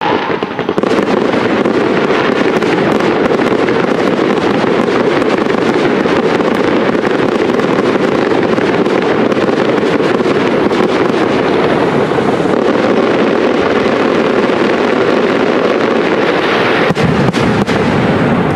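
Aerial fireworks display: a dense, continuous barrage of shell bursts and crackling, with a cluster of louder bangs about seventeen seconds in.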